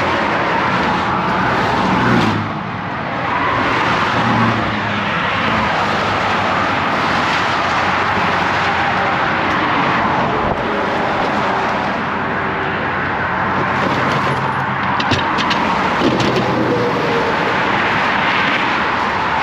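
Heavy highway traffic rushing past at speed, a steady wash of tyre and engine noise that swells and eases as vehicles go by. A few light clicks come about two-thirds of the way through.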